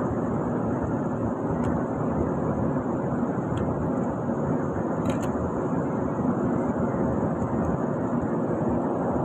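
Steady machinery background noise, even throughout, with a few faint clicks about two, three and a half and five seconds in.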